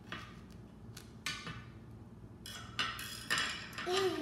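A kitchen knife knocking and scraping on a thin plastic cutting board as a banana is cut through, in a series of clacks and short scrapes that come closer together in the second half.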